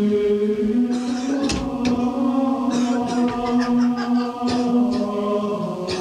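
Choral vocal music: a choir chanting long held notes that shift in pitch every second or two.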